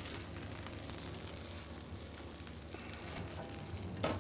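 Butter sizzling in a frying pan around a seared, skin-on hapuku fillet as a spoon bastes the fish with it: a steady, even sizzle. A single sharp knock comes near the end.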